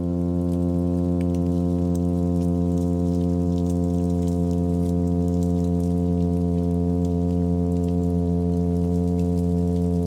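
Plainfin midshipman humming: one continuous, unwavering low drone with many overtones. This is the male's courtship hum, used to attract females to his nest.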